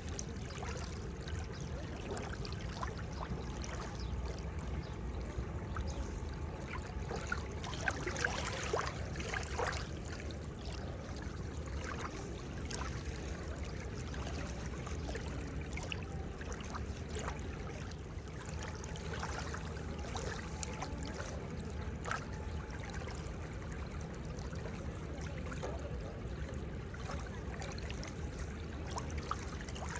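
Seawater washing and trickling at the shoreline: a steady wash with many small splashes and drips, busiest about eight to ten seconds in.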